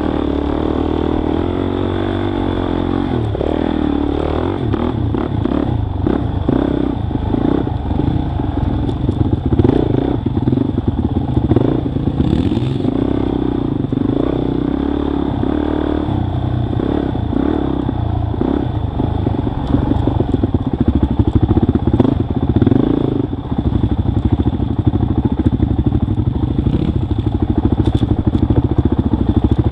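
Dirt bike engine running along a rough trail, its revs rising and falling with the throttle, with scattered knocks and rattles from the bike over bumps.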